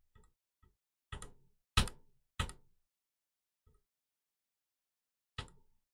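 Four short, sharp knocks with near silence between them: three in the first half, the second the loudest, and one more near the end.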